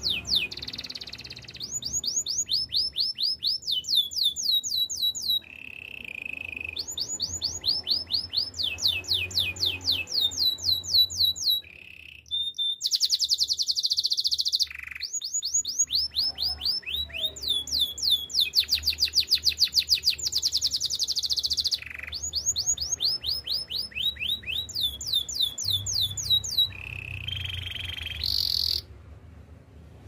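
Domestic canary singing a rolling song: phrase after phrase of fast repeated down-slurred notes, several a second, with the odd held whistle and buzzy trill between them. There are short breaks about twelve seconds in and near the end.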